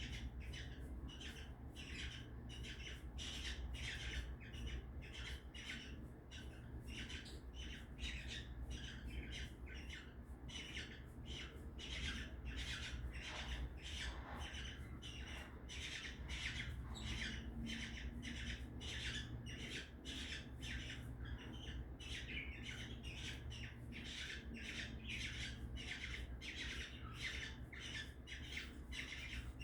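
Cockatiels squawking: a continuous run of short, harsh calls, two or three a second.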